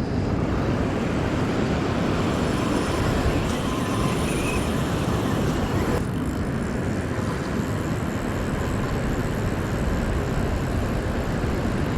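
Steady wind buffeting the microphone over the rumble of beach surf.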